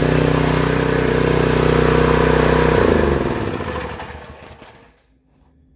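Homelite Pro 3100 PSI pressure washer's small gas engine running steadily, freshly started after its bad gas was drained. It cuts out about three seconds in and runs down to silence.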